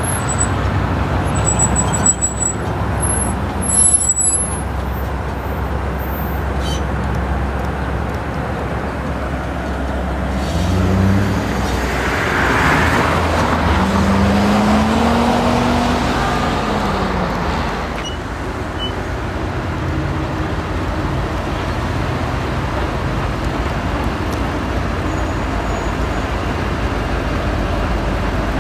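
Norfolk Southern-led freight train's diesel locomotives running as the train approaches, a steady low rumble. In the middle the sound grows louder for several seconds, with a hiss and a tone that rises and then falls.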